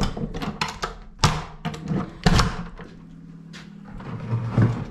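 A door being opened: a few sharp clunks and knocks in the first two and a half seconds, then a softer thud near the end.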